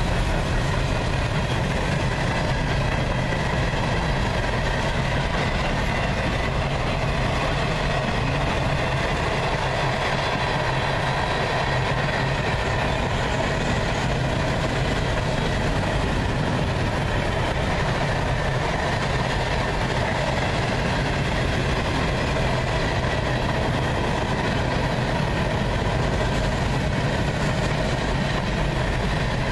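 Freight cars of a long mixed freight train, boxcars and covered hoppers, rolling past at a steady pace: a continuous rumble of steel wheels on rail at an even level.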